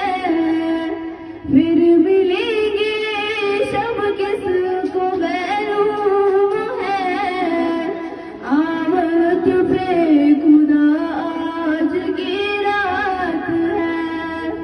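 A girl singing solo into a handheld microphone, holding long notes with wavering ornaments, with brief pauses about a second and a half in and again about eight seconds in.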